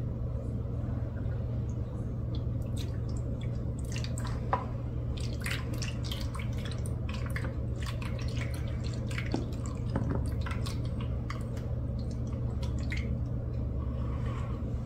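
Blended ginger-and-lemon juice pouring and dripping from a small bowl into the wells of a plastic ice cube tray: an irregular patter of small drips and trickles over a steady low hum.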